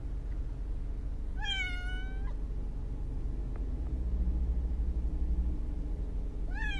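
A cat shut in a plastic pet carrier meowing in protest: one drawn-out meow about a second and a half in, and another starting near the end. A steady low rumble runs underneath.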